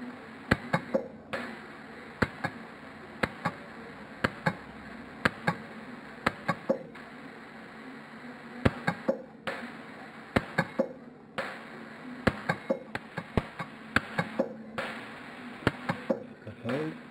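Lampert PUK micro-TIG pulse welder firing short weld pulses: sharp snapping clicks, mostly in quick twos and threes, as spots are set along a broken solder joint in a gold ring. A steady hiss runs underneath and breaks off briefly a few times.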